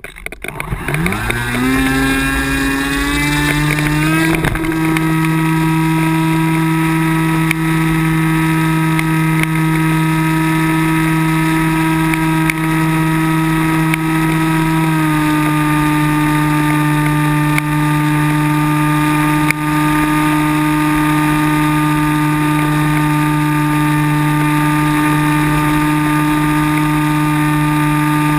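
Electric motor and propeller of a Multiplex Cularis RC sailplane, heard from its onboard camera: the whine rises in pitch over the first four seconds as the motor spins up, then holds a steady drone that drops slightly about halfway through.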